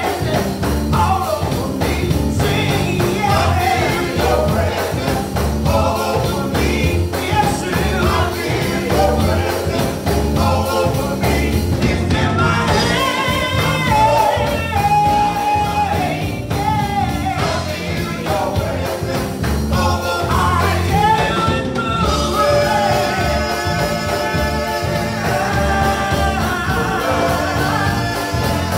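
Gospel singing by a group of vocalists on microphones over instrumental accompaniment with a steady beat.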